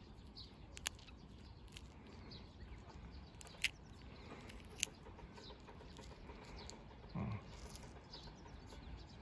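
A few sharp clicks as fingers pry apart a green rapeseed pod, over a faint outdoor background with small bird chirps and a brief low sound a couple of seconds before the end.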